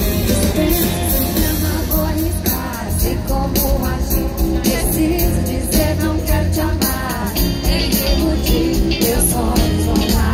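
Live pop-rock band playing through a stadium PA during a soundcheck: electric guitar and a lead singer over a steady beat.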